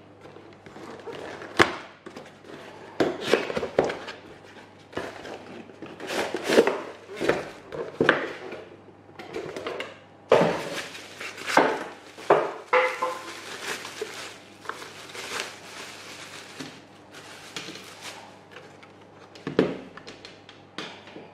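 Unboxing handling noise: a cardboard box, foam inserts and a plastic bag being opened and pulled apart, with rustling and crinkling and irregular sharp knocks on a glass tabletop. The loudest knocks come about one and a half seconds in and near the end.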